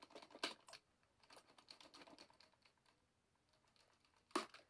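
Box cutter slicing along the sealed edge of a cardboard box: faint, rapid scratchy clicks, with a louder snap about half a second in and another near the end.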